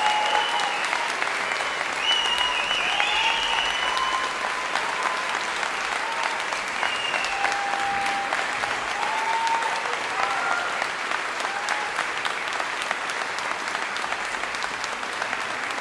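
Concert audience applauding, a dense steady clapping. High whistling tones and calls sound over it during the first half, and the clapping thins slowly toward the end.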